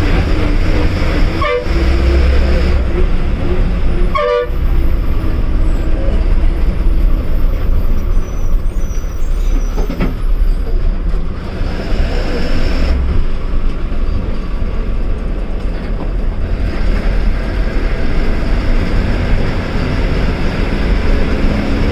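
KSRTC bus engine running while the bus drives, heard from inside the cabin, with two short horn toots about a second and a half and four seconds in.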